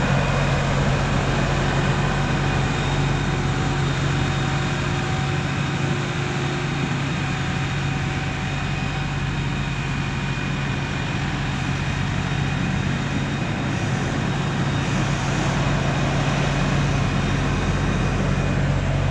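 LS compact tractor's diesel engine running steadily as the tractor drives off and comes back. It is a little quieter midway, while the tractor is farthest off.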